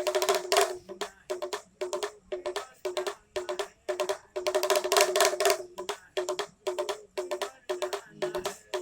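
A small hand-held pellet drum (damru or dugdugi) rattled in quick, pitched rolls, each about half a second long, with longer rolls near the start and in the middle.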